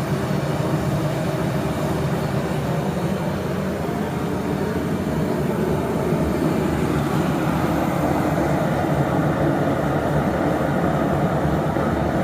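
Two-burner propane forge's burners running at 20 psi, a loud, steady rushing noise of burning gas that does not change.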